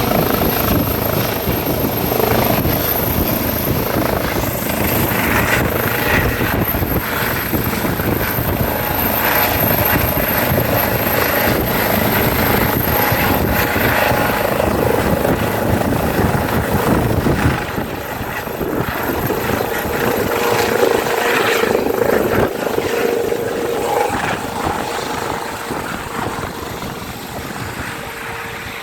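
Helicopter rotor and engine running loud, with a fast chop of the blades and a steady high whine. The sound drops a little about two-thirds through, then slowly fades.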